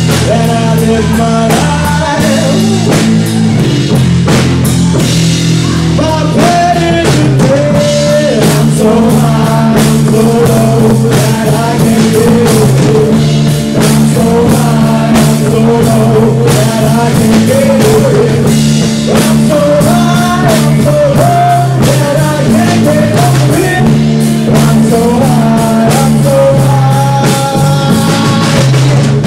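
Live rock band playing loud and without a break: drum kit and bass guitar under a wandering melodic line.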